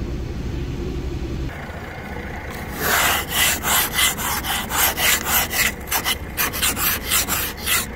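Plastic ice scraper scraping frost off a car windscreen in quick rasping strokes, about three a second, starting about three seconds in. Before that, a low steady hum of the car's engine running.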